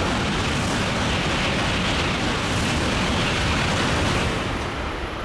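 An N700-series Shinkansen passing through the station at about 300 km/h without stopping: a loud, steady rush of air and rolling noise, easing off about four seconds in as the train clears.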